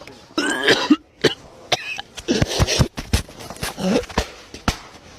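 A person coughing repeatedly, a string of short coughs with brief gaps between them. The coughing is faked as a prank.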